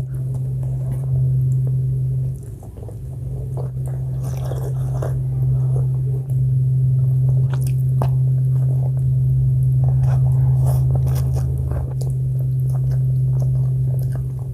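Close-miked eating sounds: biting and chewing of food, with scattered crunches and short clicks, over a steady low hum that is the loudest thing throughout.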